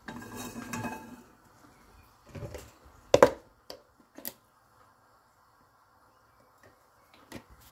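A nonstick frying pan knocks against the metal grate of a gas cooker as it is moved: one sharp knock about three seconds in, then a couple of lighter clicks. After that it is nearly quiet.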